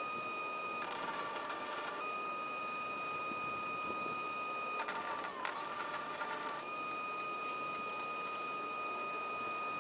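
Electric welder arc crackling in two bursts, about a second and then about two seconds long, as cattle-panel wires are tacked together. A steady high whine runs underneath and dips slightly in pitch while the arc burns.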